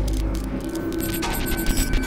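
Outro music with a steady low pulse and short, glitchy stuttering effects about a second in.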